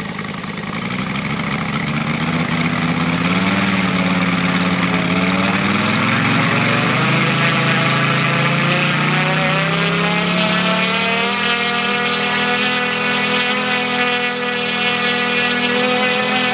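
Radio-controlled F4U Corsair model's engine being run up on the ground, its propeller turning: the engine note climbs steadily in pitch for several seconds and then holds at high revs.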